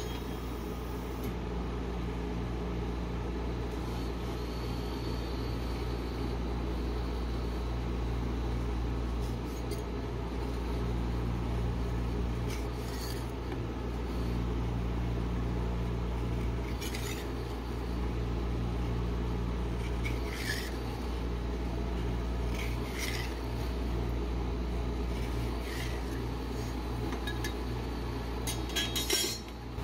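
Metal spatula scraping and rolling frozen ice cream off a steel cold plate in repeated rasping strokes, over a steady low machine hum.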